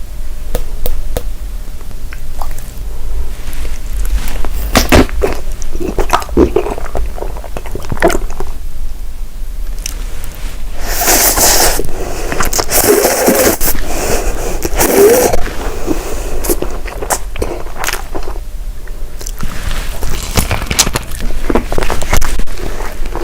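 Close-miked eating: bites and chewing with sharp clicks, crackles and scrapes, and a louder crunchy stretch about halfway through.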